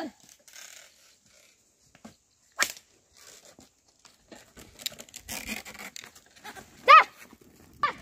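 Oxen-drawn wooden plough being worked through a dirt field: scraping and rustling of the share in soil and of feet, with a sharp crack about two and a half seconds in. Near the end comes one short, high call.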